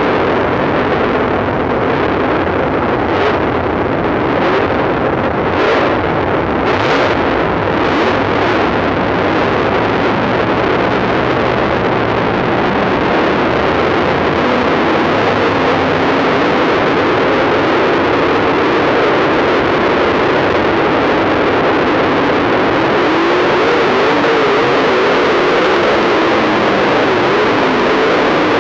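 Dirt late model race car engine running hard, heard through an overloaded in-car camera microphone as a steady, heavily distorted noise.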